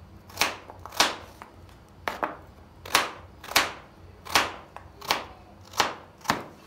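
Kitchen knife slicing raw carrots into rounds on a wooden cutting board: a steady run of sharp chops, about nine cuts, one every two-thirds of a second or so.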